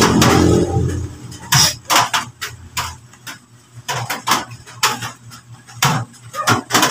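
Irregular sharp clicks and knocks as a plastic-housed solar floodlight is handled and shifted on a wooden table.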